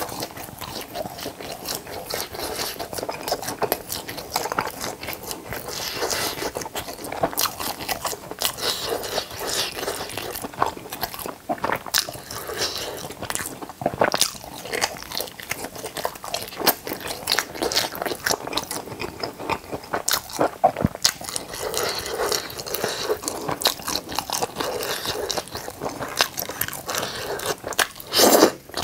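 Close-miked eating: crunchy bites and chewing with wet clicks and crackles, uneven and continuous, with a louder burst near the end.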